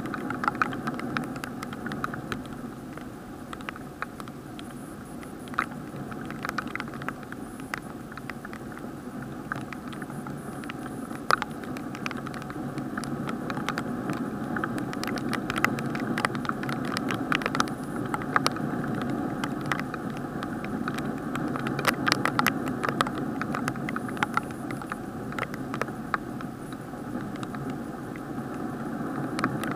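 Rain heard from inside an action camera's sealed waterproof housing: a steady muffled hiss with frequent irregular sharp taps of raindrops hitting the plastic case.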